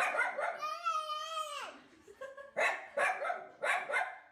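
A dog barking: a bark, then one long drawn-out cry of about a second that rises and falls in pitch, then a quick series of four short barks.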